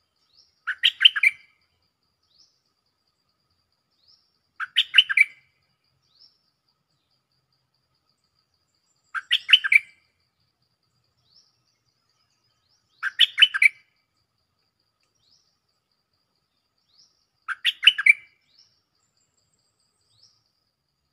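Stripe-throated bulbul singing its calling song: five short, rapid song phrases of about a second each, repeated roughly every four to five seconds, with a few faint high chirps in between.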